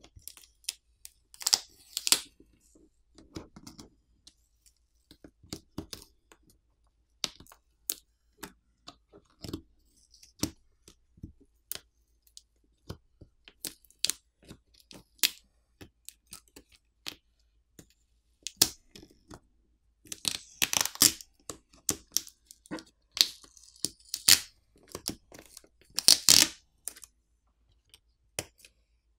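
Black adhesive tape being peeled by hand off a phone's battery and flex cables: a scatter of small crackles and clicks, with louder tearing rips about two seconds in and several times in the second half.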